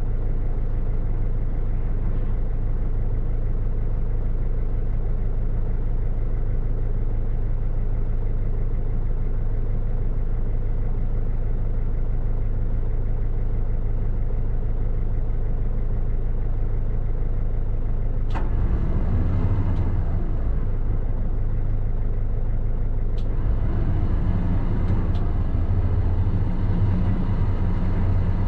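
Recovery truck's engine idling steadily. About 18 seconds in, a click and a rougher, louder mechanical running noise join it, dropping back briefly and returning from about 23 seconds.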